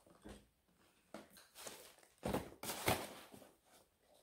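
Handling noise as things are moved and set down: a few soft rustles and knocks, then two louder knocks about half a second apart a little past the middle.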